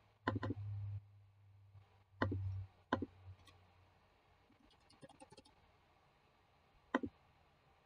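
Computer mouse clicks: a quick double click, then single clicks, with a short run of soft keyboard typing about five seconds in. A low hum comes and goes under the first clicks.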